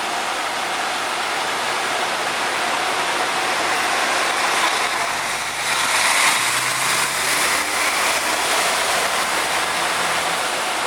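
Steady rushing noise with an engine running underneath, its low hum clearest from about five seconds in.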